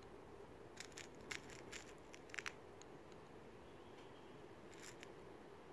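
Faint small clicks of 4.5 mm pellets being pressed by hand into the chambers of an air pistol's rotary pellet magazine. There are several clicks in quick succession in the first couple of seconds, then one more near the end.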